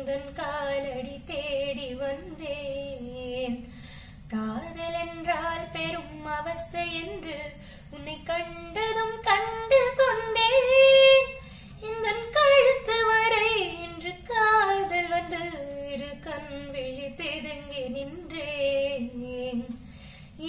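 A teenage girl singing solo and unaccompanied, a melody with long held, wavering notes that climbs to its loudest, highest stretch about halfway through.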